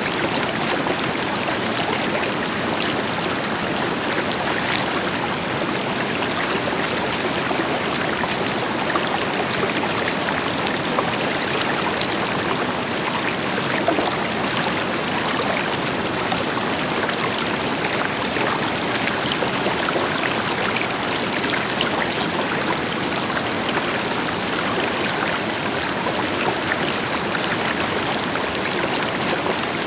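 River water flowing and splashing over rocks, a steady full rush with small splashes throughout, backed by the deeper rush of a distant waterfall.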